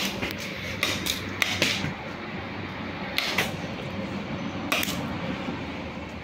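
Paintball markers firing on the field: sharp pops, mostly in quick pairs, repeated every second or two.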